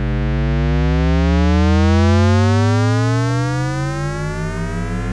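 Synthesizer tone gliding steadily upward in pitch, with offset copies of the rise layered over one another so the climb seems to go on without end: a Shepard tone.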